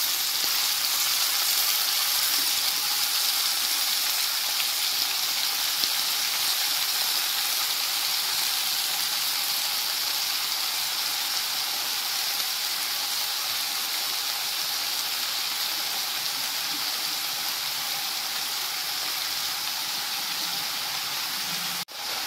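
Chopped spring onions and potatoes frying in hot mustard oil in a pan: a steady sizzle that eases slightly as the wet greens cool the oil, with a brief break near the end.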